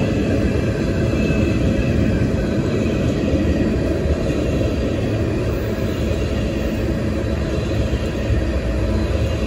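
A train rolling past, its railroad cars making a steady, even rumble on the rails.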